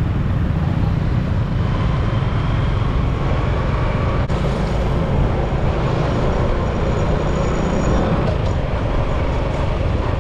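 Steady street traffic noise with a constant low rumble.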